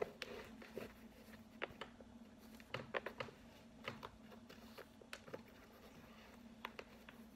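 Hockey skate laces being pulled tight through the eyelets by hand: faint, scattered clicks and rubbing.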